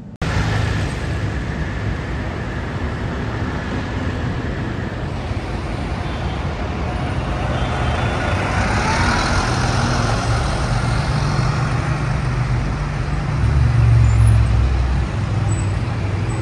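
City road traffic: cars, taxis and a double-decker bus driving past close by. Their engines and tyres make a steady noise, with a hiss that swells as the bus passes about halfway through. A low engine rumble is loudest about two seconds before the end.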